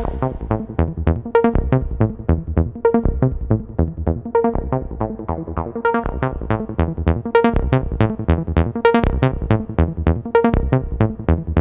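Electronic background music: a sparse passage of short, quick synthesizer notes with no full beat.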